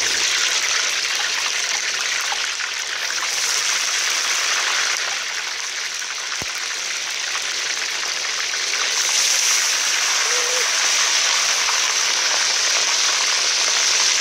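Whole fish sizzling in hot oil in a wok: a loud, dense crackling hiss. The sizzle swells again about three seconds in and about nine seconds in, as more fish go into the oil.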